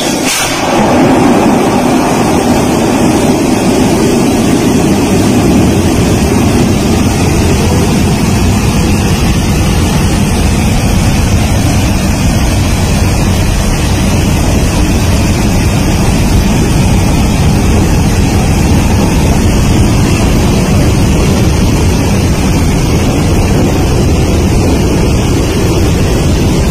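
Loud, steady roar of water jetting from a dam's fixed-cone outlet valves and crashing into the water and spray below. It builds within the first second and then holds.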